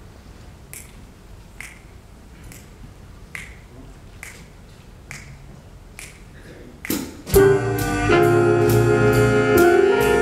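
Eight evenly spaced finger snaps, a little under a second apart, set the tempo. About seven seconds in, a jazz big band comes in loudly, with saxophones and brass playing sustained chords.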